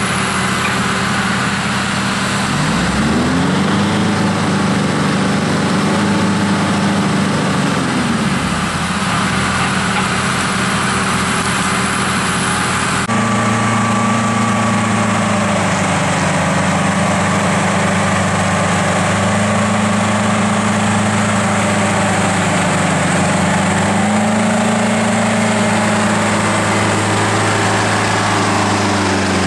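Caterpillar D6 bulldozer's diesel engine running while blading a road, its pitch rising and dropping several times as the engine speeds up and slows down.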